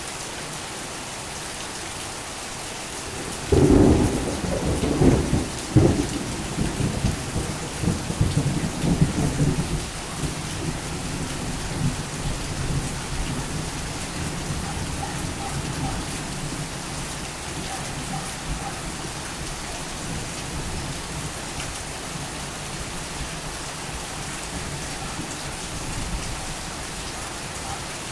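Heavy rain falling steadily. About three and a half seconds in, a sudden loud clap of thunder breaks in and rolls on in rumbling peals that fade over the next eight seconds or so.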